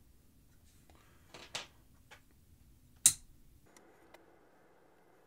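A few soft taps and one sharp, short click about three seconds in, from handling a Sharpie marker and a fixed-angle knife sharpener with a clamped blade. A faint steady hum comes in a little later.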